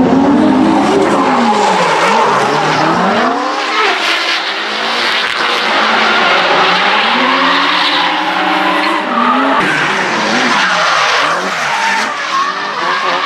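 Several drift cars in a tandem run: engines revving up and down at high rpm, pitch falling and rising again and again, over the continuous skidding of tires sliding sideways.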